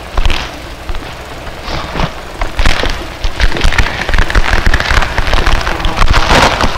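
Experimental noise music: a dense, crackling and rumbling texture full of sharp pops, with bursts of hiss near the start, about two and a half seconds in and near the end, and a faint rising whistle in the middle.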